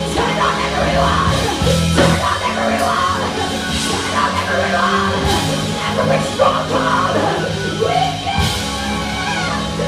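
Live gospel worship band playing, with drum kit and keyboards, and a woman singing into a microphone over it. The music cuts in suddenly at the start.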